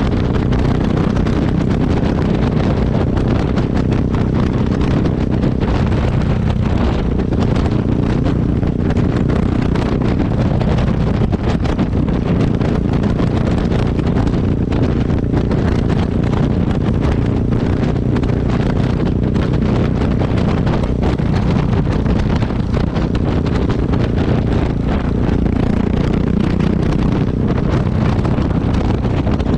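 Yamaha XT660X's single-cylinder four-stroke engine heard at close range through its exhaust, running at a steady speed, with wind buffeting the microphone.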